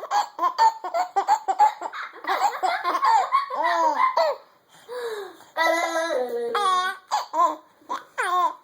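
Baby belly-laughing in repeated bursts of giggles, with two short pauses.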